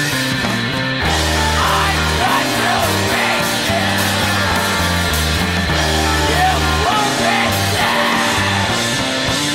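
Rock band song from a recording: bass notes that change every second or so under guitar and drums, with a singing voice over them.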